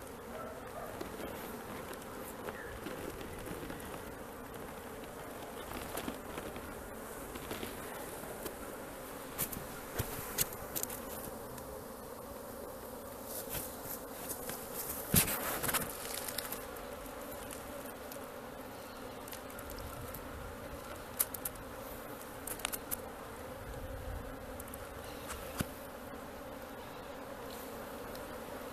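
A mass of honeybees buzzing in a steady, continuous hum, with a few sharp clicks and knocks scattered through it.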